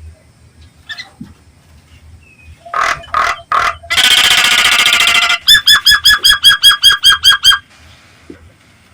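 Nias hill myna calling loudly: three short calls, then a harsh rasping note about a second and a half long, then a fast run of about a dozen sharp repeated notes, some six a second.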